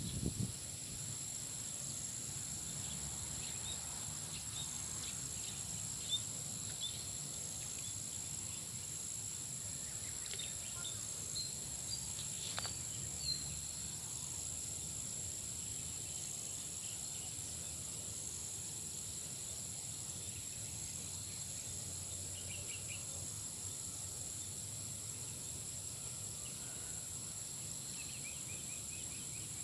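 Steady, high-pitched insect chorus that holds unbroken, with a few short bird chirps and a couple of soft clicks in the first half.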